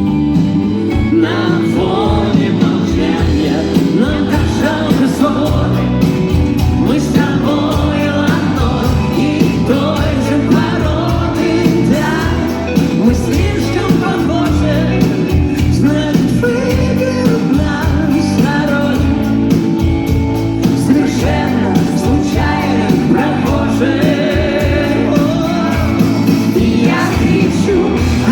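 Live rock band playing a song in concert, with singing over the band.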